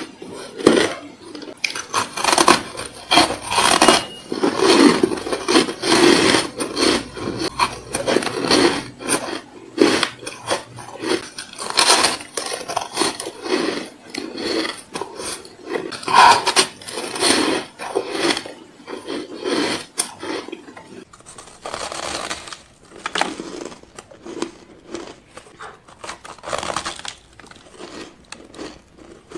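Close-miked biting and chewing of powdery, frosty ice: a dense run of irregular crisp crunches and crackles, a little softer in the last third.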